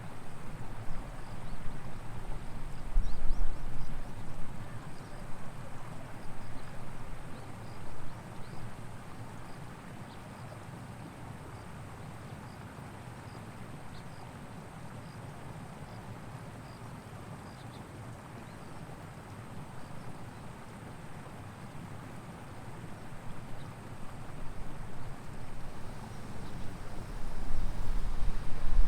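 Outdoor ambience: wind buffets the microphone in gusts of low rumble during the first seconds and again near the end, calmer in between. Under it sits a faint high chirp repeated at an even pace, a little more than once a second.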